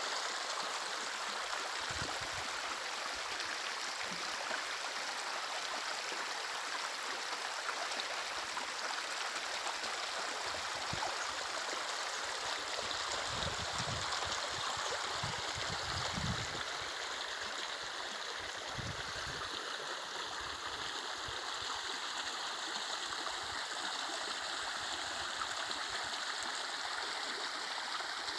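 Running water of a stream, a steady rush with no break, with a few brief low rumbles partway through.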